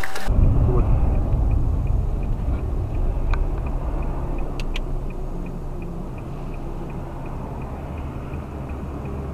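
Low rumble of a car's engine and road noise heard inside the cabin, steady and slowly fading, with a couple of sharp clicks near the middle.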